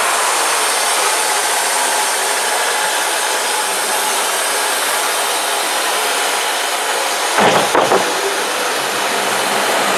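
Wood-Mizer LT35 portable band sawmill running, a steady loud noise, with a brief louder rattle about seven and a half seconds in.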